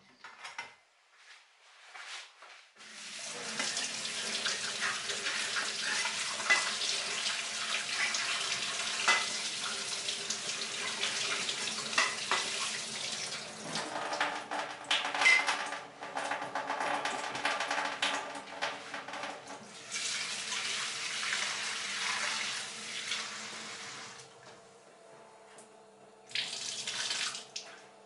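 Tap water running into a sink while a cutting board and cleaver are rinsed. The flow starts about three seconds in, breaks off briefly twice, stops near the end, then comes back for one short burst.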